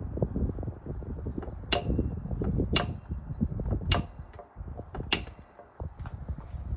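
Frigid 12-inch double-oscillation table fan running, its oscillation mechanism giving four sharp clicks about a second apart over a steady low hum.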